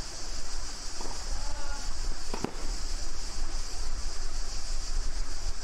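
Steady high-pitched drone of insects, with two short knocks about one and two and a half seconds in.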